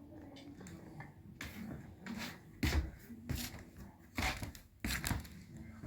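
A marble knocking and rattling in a turned walnut cat-toy dish as kittens bat at it. The first couple of seconds are quiet, then come several sharp, irregular knocks.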